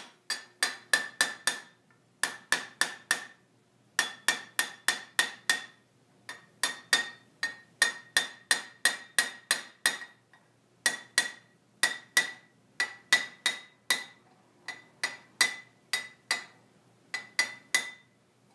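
Small hammer tapping a copper vase body in quick runs of about four to five blows a second, broken by short pauses, each blow with a bright metallic ring.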